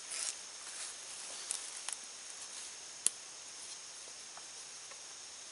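A few light clicks and knocks of a large blade and a green wooden stick being handled, with one sharp click about three seconds in, over a steady high drone of insects.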